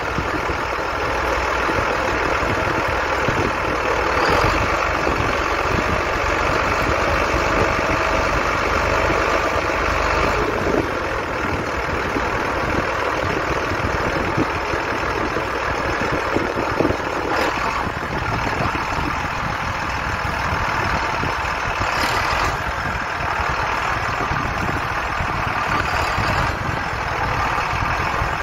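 Heavy diesel farm machinery running steadily, with a few brief knocks.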